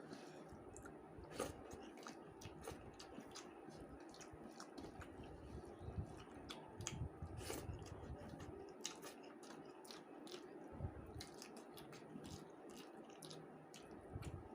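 Close-up eating sounds: a person chewing a mouthful of rice with fish curry, with wet squelching and many small sharp mouth clicks scattered through.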